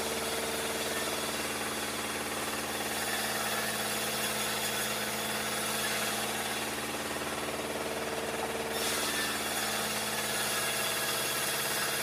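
Vertical band sawmill running steadily as its blade rips lengthwise through a log, a steady machine hum under a dense cutting hiss. The high hiss drops away about nine seconds in.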